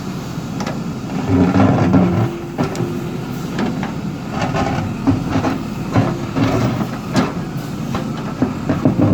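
JCB earth-mover's diesel engine running under load, with scattered knocks and clanks, roughly six, as the machine breaks up a concrete bridge wall.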